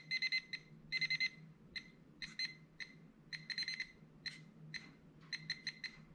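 Nokta Makro Pulsedive underwater metal detector, fitted with its large coil, giving short high-pitched beeps in uneven clusters as it passes over a small metal target lying on its side. The broken, stuttering response is the sign of a weak signal: the detector is "not so confident on its side" but is picking the target up.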